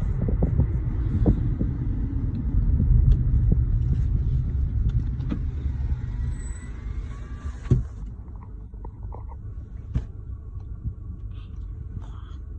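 Car cabin road noise while driving: a steady low rumble with hiss above it, which drops off suddenly with a knock about eight seconds in and goes on more quietly, with a few light knocks.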